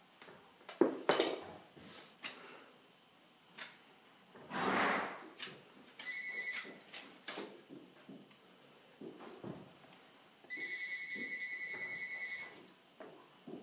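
Clicks, knocks and scrapes of a farrier's hand tools working a horse's hoof, with a louder rush of scraping about five seconds in. A steady high pulsing tone sounds briefly near the middle and again for about two seconds near the end.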